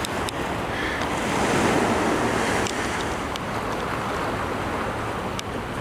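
Surf washing against shoreline rocks, a steady rushing noise that swells about a second and a half in, with wind buffeting the microphone.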